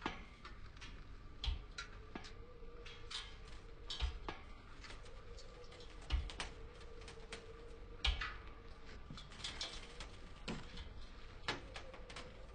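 High-heeled shoes and hands on a metal ladder's rungs: a slow series of knocks about every two seconds with lighter clicks and clacks between them, over a faint steady hum.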